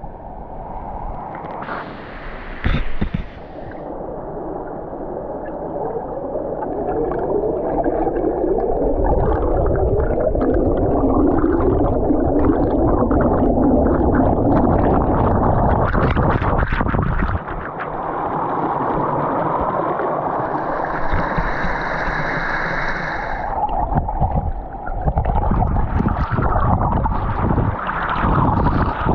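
Turbulent water churning beneath a small waterfall, heard through a submerged action camera: a loud, muffled, continuous churn of water and bubbles.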